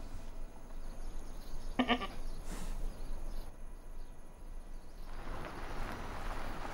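A goat bleating once, a short call about two seconds in.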